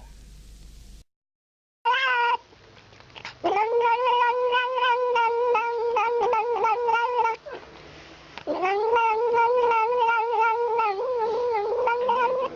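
A cat yowling: one short call, then two long, wavering yowls of about four seconds each with a short pause between them.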